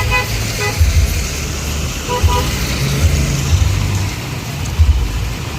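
Short vehicle horn toots: one at the start, another just after half a second in, and a quick double beep about two seconds in, over steady traffic noise and a heavy low rumble.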